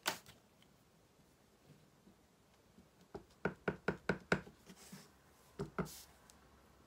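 Stamp on a clear acrylic block tapped repeatedly onto a black ink pad to ink it: a quick run of about eight light taps, then two more a little over a second later. A single knock near the start as the ink pad is set down on the mat.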